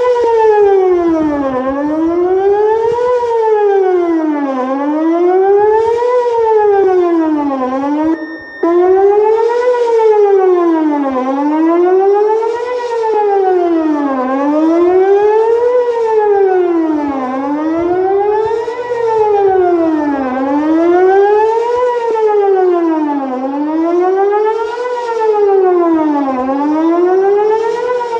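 Whelen WPS-2810 electronic outdoor warning siren sounding a wail, its pitch rising and falling about every three seconds. About eight seconds in, the wail cuts out for a moment and a short steady beep sounds in its place, a glitch the owner blames on a heat-damaged control panel. The siren is weaker than it should be, which the owner puts down to blown speakers.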